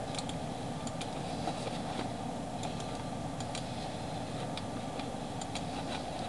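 Steady low hum and hiss of room tone, with faint, irregular ticks scattered through it.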